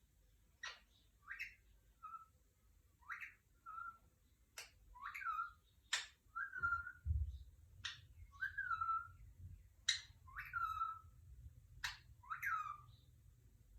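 Pet parrot calling: a sharp click each followed by a short falling whistle, repeated about every two seconds, six times.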